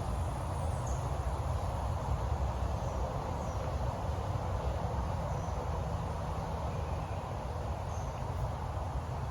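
Steady outdoor background noise, a low rumble and hiss, with a few brief, faint, high chirps scattered through it.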